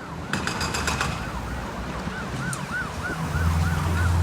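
A siren or warning alarm wailing in quick rise-and-fall sweeps, about three a second, over the low hum of road traffic and engines. The engine hum grows louder in the last second. A few sharp clicks come in the first second.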